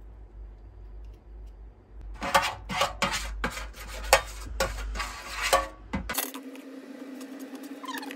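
Metal spoon scraping and clinking against a metal baking pan while mixing an oily marinade: a quick run of sharp clinks and scrapes that stops abruptly about six seconds in, giving way to a steady low hum.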